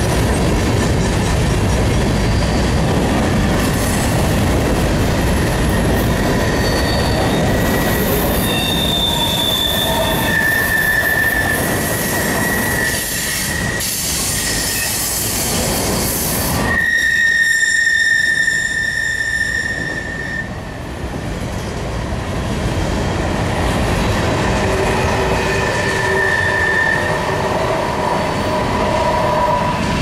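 Freight train cars (covered hoppers and tank cars) rolling past close by, a steady rumble of wheels on rail with intermittent high-pitched wheel squeal. The loudest, longest squeal comes about 17 seconds in and lasts about three seconds.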